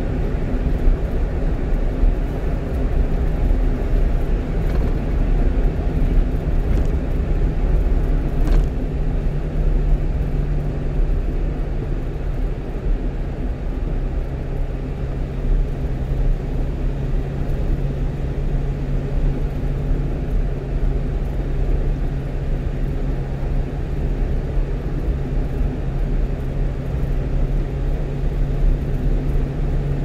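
A one-ton truck cruising at highway speed, heard from inside its cab. The engine hums steadily over continuous tyre and road rumble.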